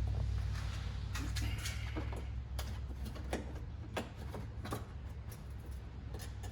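Scattered sharp clicks and knocks of plastic trim clips and panel being worked loose by hand, about one every half second to a second, over a steady low rumble.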